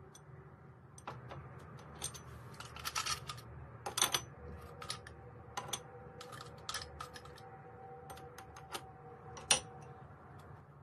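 Ice cubes and fruit slices set into an empty glass tumbler: an uneven run of sharp clinks and taps of ice against glass. The hardest knock, about four seconds in, leaves the glass ringing faintly, and another hard clink comes near the end as an ice cube drops in.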